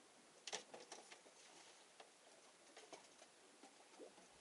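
Near silence, with a few faint clicks and taps, the clearest about half a second in.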